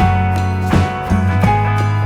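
Background music: an upbeat track with guitar and a steady beat.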